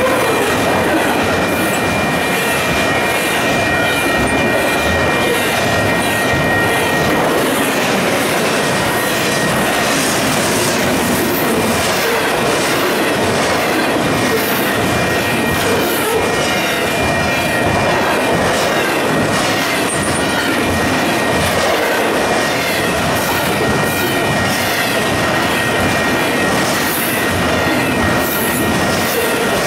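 Union Pacific double-stack container train passing at speed: a steady rush of steel wheels on rail with rapid clicking from the wheels over the track, and a thin steady high squeal from the wheels, strongest in the first several seconds.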